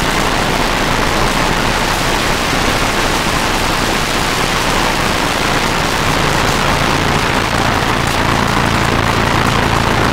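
Experimental noise-music recording: a loud, steady, dense hiss-like wash of noise. A low hum fades out near the start and comes back in the second half.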